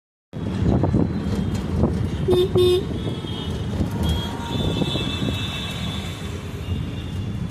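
Road traffic rumble with a vehicle horn tooting twice in quick succession about two and a half seconds in.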